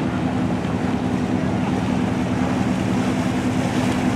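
Motorboat engine running steadily at a constant pitch, with wind noise on the microphone.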